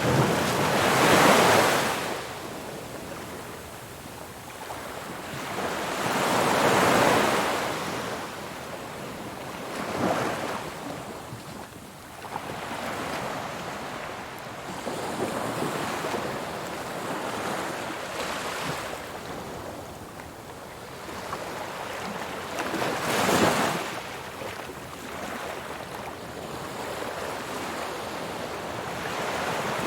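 Ocean waves breaking on a beach: a continuous wash of surf with the noise swelling as each wave breaks, about a second in, around seven and ten seconds, and most sharply around twenty-three seconds.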